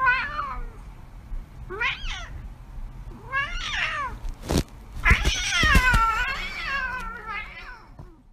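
Ginger cat meowing again and again: several short meows, then a long, wavering, drawn-out meow in the second half.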